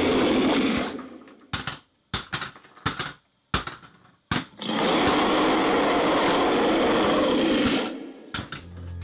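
Sharp clacks and knocks of hard plastic toy car parts as a toy car is broken apart, in a gap between two stretches of a loud, steady grinding buzz: one for about the first second, one for about three seconds from near the middle.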